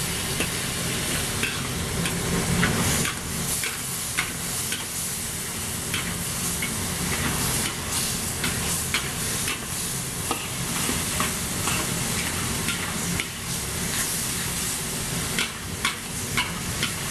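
Diced beef and vegetables sizzling in a hot wok as they are stir-fried with a spatula, with frequent sharp clicks and scrapes of the spatula against the wok. The sauce is being thickened with cornstarch slurry that has just been poured in. A steady low hum runs underneath.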